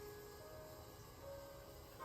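Quiet background music: a soft melody of held notes that change pitch every half second or so.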